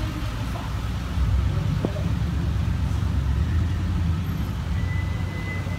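A pickup truck's engine running as it drives slowly past and away across the parking lot: a low rumble that swells about a second in and holds.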